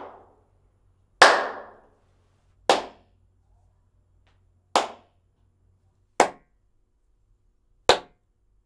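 Single hand claps in a small room, five in all, each followed by the room's reverberant decay. The first rings on longest, and later claps sound shorter and drier as broadband acoustic absorber panels take effect.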